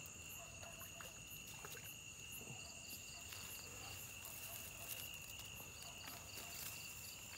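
Night insects calling, crickets among them. A faint, steady high-pitched trill runs throughout, with short chirps repeating at an even pace.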